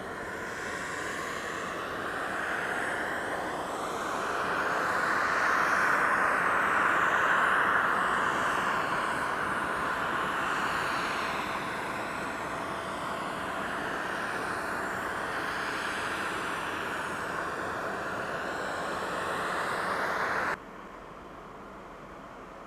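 Jet engines of a Boeing 767-300ER: a broad rush of engine noise that swells to a peak and then holds a little lower, with a faint steady whine mixed in. It cuts off abruptly near the end, leaving a quieter hiss.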